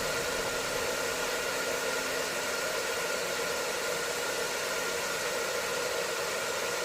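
Hair dryer running steadily, an unchanging whooshing hiss used as white noise for sleep. A faint held melody note fades out about two seconds in.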